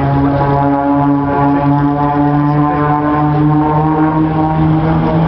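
Engines of a formation of propeller aircraft droning steadily overhead, the pitch rising slowly.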